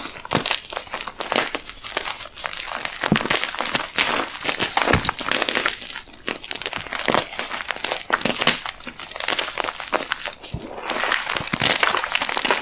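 Gym chalk being crushed and crumbled, a dense run of crisp crunches and crackles.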